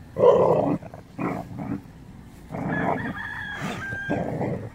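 Rooster crowing: a few shorter calls, then one long call through the second half.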